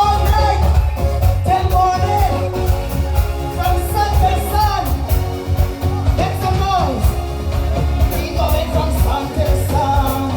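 Live soca music, loud, with a singer's voice over a heavy, steady bass beat.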